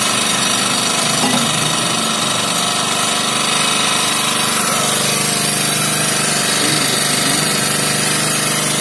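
Yanma YMG1500X portable petrol generator running steadily at a constant speed. It is producing its normal output of about 220 volts again after its burst capacitor was replaced.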